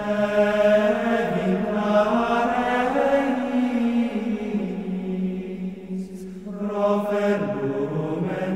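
Chant as background music: voices singing long held notes that shift slowly in pitch, with a short break about six seconds in.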